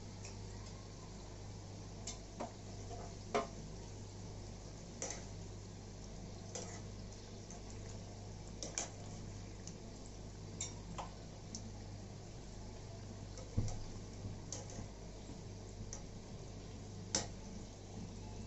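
Modaks deep-frying in hot oil in an aluminium kadhai: a steady soft sizzle with irregular sharp pops and crackles every second or so.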